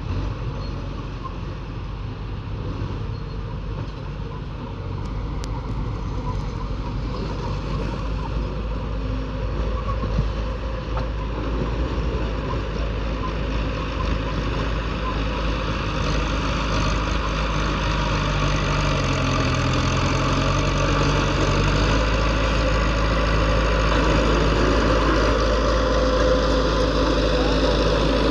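Heavy diesel engines of road-construction machinery running, gradually getting louder, with the engine note dipping and then rising again about two-thirds of the way through.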